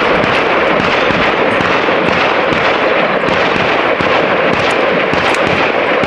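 Semi-automatic .30 calibre AEA Terminator PCP air rifle fired in a rapid string, the shots running together into a continuous crackling noise.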